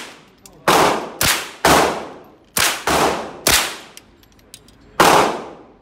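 AR-15-style rifle fired semi-automatically, seven shots in three quick groups (three, three, then one), each shot followed by a long echo off the walls of an indoor shooting range.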